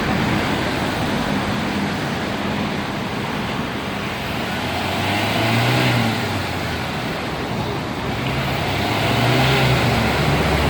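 Ford Ranger's diesel engine running, revved up and let back down twice, about five seconds in and again near the end. The revs show off the engine's black-smoke problem.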